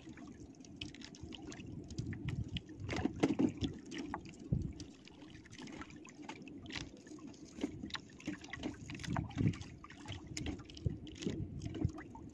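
Small waves lapping and sloshing against an outrigger boat's hull, with irregular small knocks and rustles as fishing line is handled aboard.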